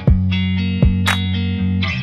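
Background music: a guitar track over a bass line, with a beat.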